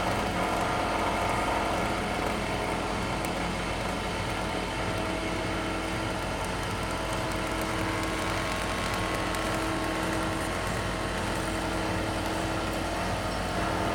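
CNC wood milling and turning lathe running steadily: an even machine drone made of several fixed tones over a noisy background, with no starts, stops or knocks.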